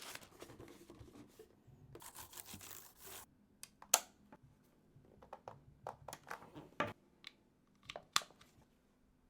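Packaging of a new MacBook Pro being unwrapped by hand: two stretches of paper tearing and rustling, then scattered sharp clicks and taps as the box and laptop are handled. The loudest click comes about four seconds in.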